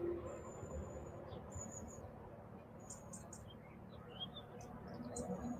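Faint, scattered high chirps and thin short whistles of small birds over low background noise.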